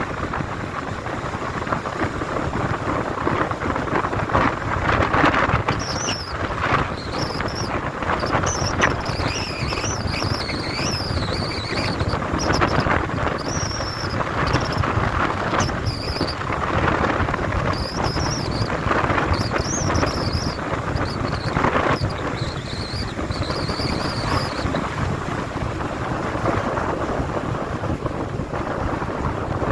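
Strong storm wind roaring steadily and buffeting the microphone. From about six seconds to twenty-five seconds, a run of short, high, wavering squeaks sounds over it.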